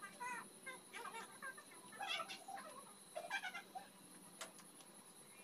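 Chickens clucking faintly in the background, a few short calls spaced about a second apart.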